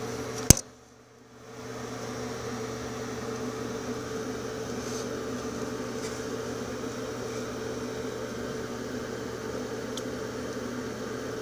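A sharp click about half a second in, then a steady mechanical hum with a low drone and a few higher fixed tones.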